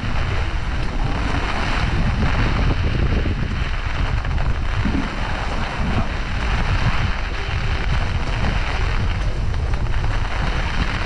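Gusty typhoon wind buffeting the microphone: a continuous low rumble with a steady rushing noise over it.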